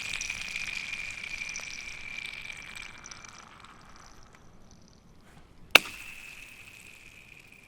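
Ice on a frozen reservoir ringing: a high, slightly falling ringing tone fades over the first few seconds. About six seconds in, a sharp crack sets off another high ringing tone that slowly dies away.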